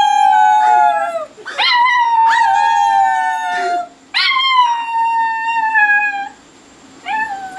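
Small dog howling: three long, high howls that each slide slowly down in pitch, with short breaks between them and a brief fourth howl starting near the end.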